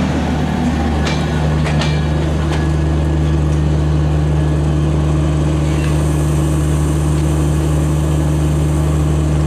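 Bangladesh Railway intercity passenger coaches rolling past close by, giving a steady low hum and rumble. In the first couple of seconds the wheels click over rail joints.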